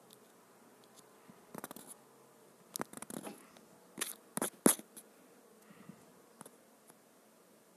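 Fingers handling and tapping a smartphone while searching and scrolling: scattered soft taps and brief scratchy rustles over a quiet hiss, in three short clusters, the loudest a sharp click a little past the middle.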